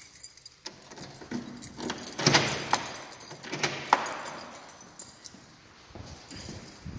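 Keys jangling and clinking while being carried, with a run of sharp metallic clicks and knocks between about two and four seconds in.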